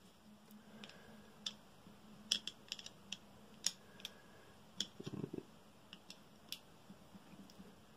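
A small screwdriver and fingers working the tiny screws on the hop-up chamber of a Tokyo Marui AKM gas blowback rifle: faint, irregular light clicks and ticks, about a dozen, with a soft handling rustle about five seconds in.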